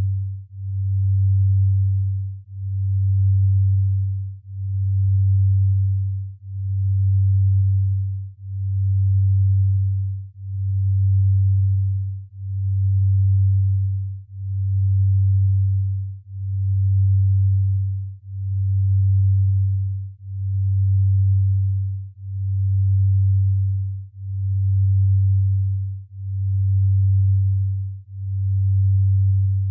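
Binaural-beat sleep tone: a steady low sine tone near 100 Hz that swells and fades evenly about once every two seconds, a slow beat in the delta range.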